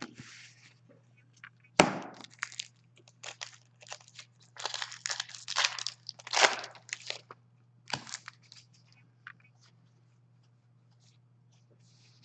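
Hockey card pack being torn open and handled: a sharp crack of the wrapper about two seconds in, then several seconds of crinkling and rustling, under a low steady hum.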